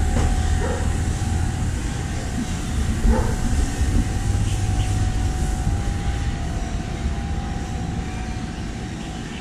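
Street ambience dominated by a low vehicle engine rumble that slowly fades, with a faint steady hum above it.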